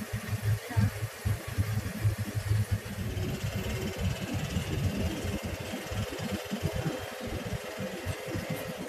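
A vehicle's engine and tyres heard from inside the cabin while driving along a snow track, an uneven low rumble under a faint steady hum.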